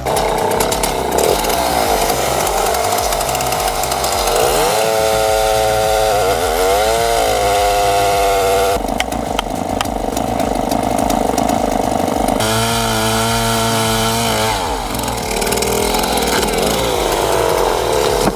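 Engine-driven wood-cutting machine running hard under load; its engine pitch sags and recovers repeatedly as it bites into wood. The sound changes abruptly about halfway through and again a few seconds later.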